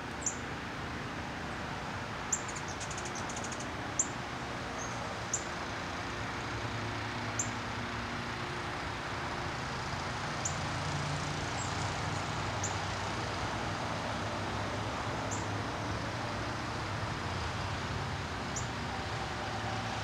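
A small songbird's short, sharp, very high chip notes, repeated every second or few, over a steady low background rumble.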